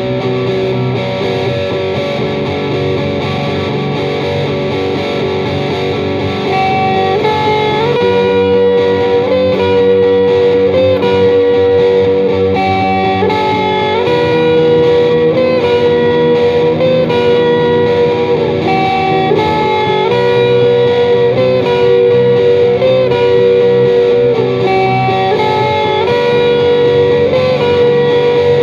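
Distorted electric guitar played through Boss MT-2 Metal Zone and SD-1 Super Overdrive pedals, with parts looped on a Boss RC-1 Loop Station: a sustained, singing lead melody over a repeating looped backing. About 7 seconds in, another looped layer comes in and the sound gets louder.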